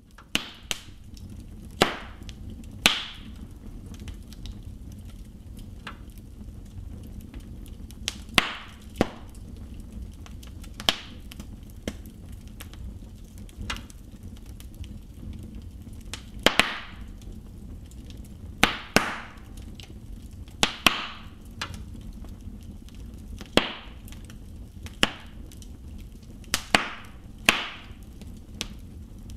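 Wood fire burning in a fireplace: irregular sharp crackles and pops from the burning logs, every second or two, over a steady low rush of the flames.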